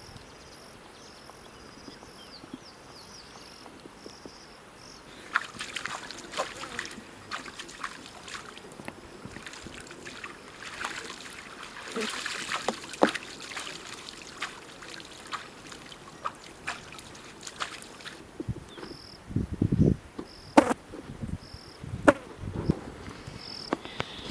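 Insects chirping in short repeated high pulses, with irregular sharp clicks and taps through the middle and a few duller knocks near the end.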